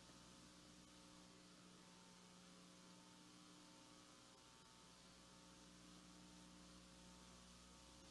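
Near silence: a faint, steady electrical mains hum with a light hiss.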